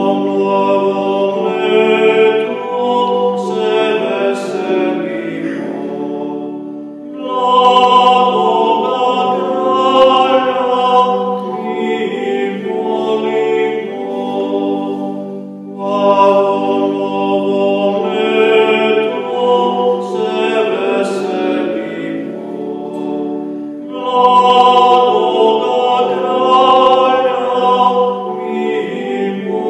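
A slow hymn sung to an electronic keyboard playing in an organ voice, in phrases of about eight seconds with long held notes.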